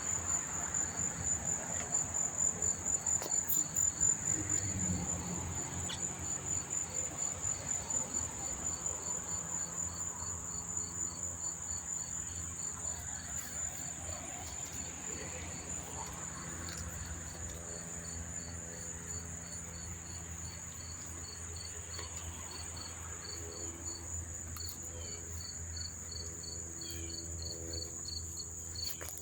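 Many crickets chirping together: a steady high-pitched trill, with a second cricket's slower, evenly spaced chirps beneath it and a faint low hum in the background.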